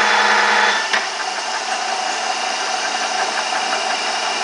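Jarbe F2-CM universal milling machine running under power feed, its feed gearing whirring; about a second in there is a sharp clunk as the feed is shifted, and the machine goes on running more quietly and steadily.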